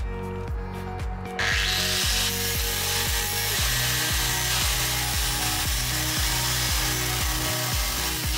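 Angle grinder cutting into steel, starting abruptly about a second and a half in and running steadily: grinding away a seized bumper bolt in the chassis. Background music with a steady beat plays underneath.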